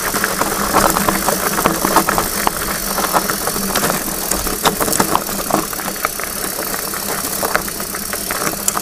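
Diamondback Mason Pro hardtail mountain bike rolling over a rough dirt and gravel trail: tyres crunching on loose stones, with irregular clicks and knocks from the bike over the bumps.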